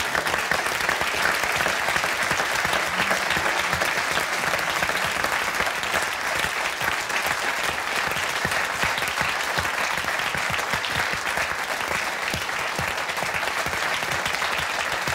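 Studio audience applauding, a dense steady clapping that eases off a little in the last few seconds.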